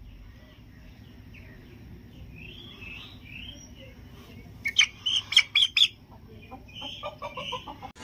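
Chickens calling: faint high chirps at first, then a burst of loud, short, sharp calls about five seconds in, followed by a quick run of lower clucks near the end.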